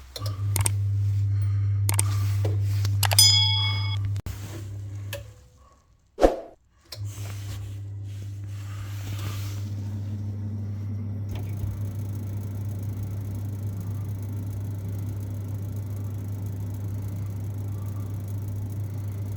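Ferroli Modena 80E combi boiler's fan starting with a click and running with a steady hum, with a short ping about three seconds in; it stops after about four seconds, then restarts with a click about six seconds in and runs steadily on. The boiler is cycling through an ignition attempt that does not light, which the engineer blames on a faulty new gas valve.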